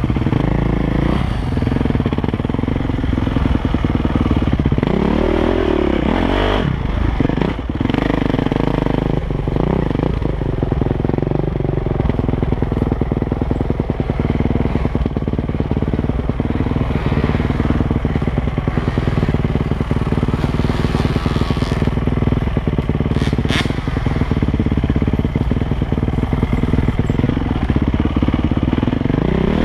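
KTM 450 SX dirt bike's single-cylinder four-stroke engine running under load on a trail ride, revs rising and falling with the throttle, with a couple of clear rev swells about five seconds in and again near the end.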